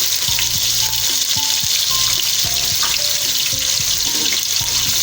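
Sliced onion frying in hot oil in a pot, a steady sizzle, with background music playing under it.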